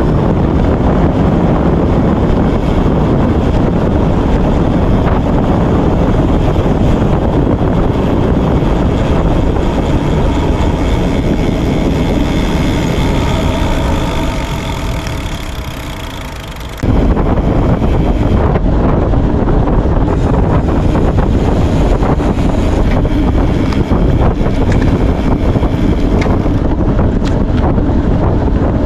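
Wind rushing and buffeting over the camera microphone while riding a gravel bike. About halfway through it eases for a few seconds and a steady whine shows through, then the loud rush cuts back in suddenly.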